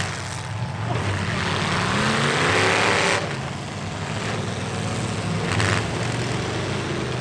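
Demolition derby truck engines running together, one revving up hard with rising pitch for about a second and a half before it drops off suddenly about three seconds in. A short sharp knock comes near six seconds in.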